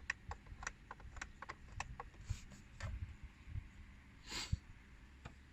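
Light, irregular clicks and taps of hands handling the plastic instrument cluster and dashboard parts, with a short hiss about four and a half seconds in.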